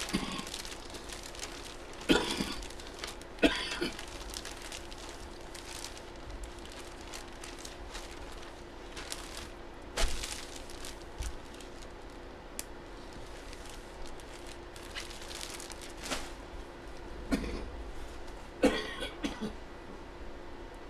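A man coughing: one cough about two seconds in and another a second and a half later, then a short run of coughs near the end, with a few light clicks in between.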